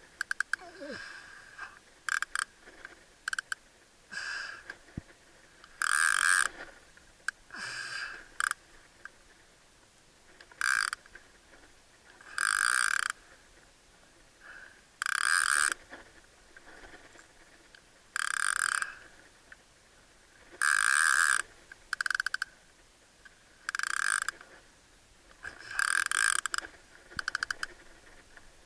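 Penn Fathom Lever Drag 30 fishing reel giving short rasping, clicking bursts, a dozen or more, each under a second and two to three seconds apart, as the line is worked while jigging.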